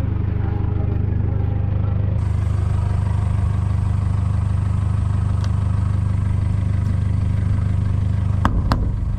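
Toyota Hilux 4x4's engine running with a steady low drone. Two sharp knocks come near the end.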